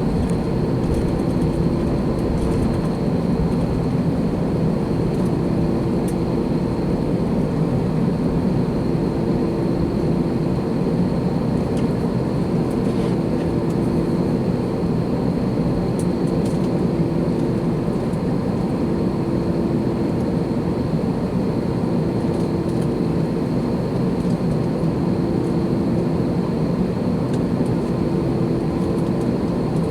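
Airbus A321's CFM56 jet engines and airflow heard inside the passenger cabin as a steady, loud drone with a few constant hum tones over it.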